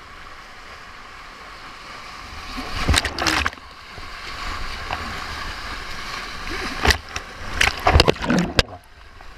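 Whitewater rapids rushing around a hydrospeed board at water level, with loud splashes as waves break over the board about three seconds in and again from about seven to eight and a half seconds. Near the end the sound briefly drops and turns muffled as water washes over the microphone.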